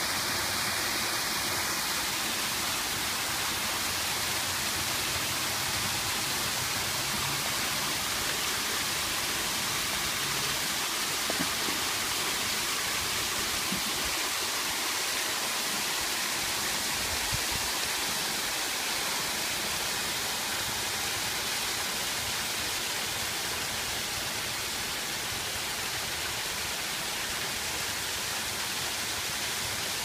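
Water from a fountain pouring in a thin sheet over concrete ledges and splashing into a shallow basin, a steady, unbroken rush of falling water.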